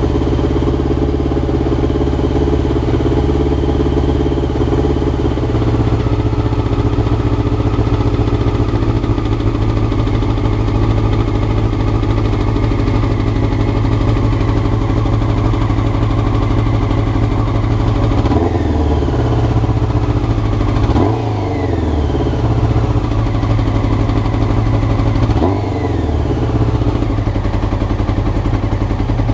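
Honda CBR motorcycle engine idling steadily, the rough idle the owner is chasing through the carburettors, with three short throttle blips in the second half that rise and fall back to idle.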